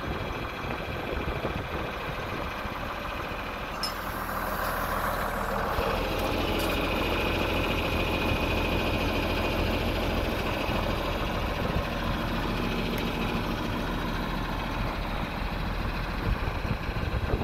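John Deere 4640 tractor's six-cylinder diesel engine running steadily. About four seconds in it grows louder, and a steady high whine joins about six seconds in.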